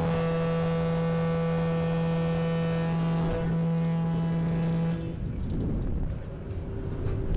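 Ship's horn sounding one long, steady, low blast that cuts off about five seconds in, leaving a low rumble.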